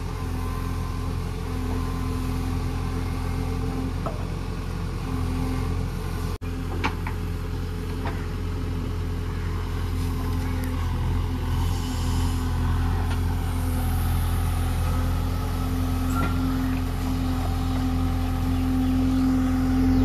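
JCB 3DX backhoe loader's diesel engine running steadily under hydraulic load as the backhoe digs and dumps earth, its note swelling a little near the middle and towards the end. A brief dropout comes about six seconds in.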